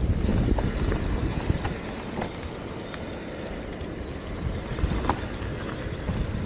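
Mountain bike descending a dirt-and-gravel trail: wind rumbling on the action camera's microphone and knobby tyres rolling over loose ground, with scattered clicks and rattles from the bike.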